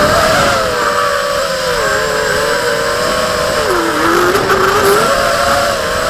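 FPV racing quadcopter's electric motors and propellers whining, the pitch wandering up and down with the throttle and dipping briefly about four seconds in.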